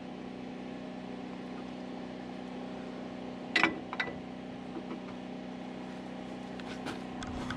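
A steady engine hum at idle, with two sharp clicks about three and a half and four seconds in.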